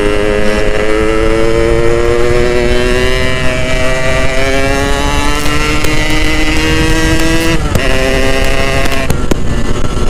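Yamaha two-stroke motorcycle engine pulling under load, its pitch rising slowly as the bike gathers speed, then a short break and drop in pitch near the end as the rider shifts up a gear.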